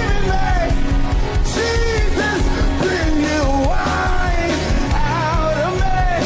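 Live gospel worship music: a vocalist singing drawn-out, wordless-sounding lines over a full band with a steady bass and drums.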